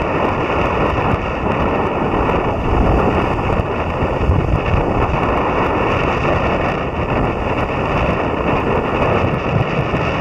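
Strong wind blowing across the microphone: a loud, steady rush with irregular low buffeting gusts, over the wash of choppy waves.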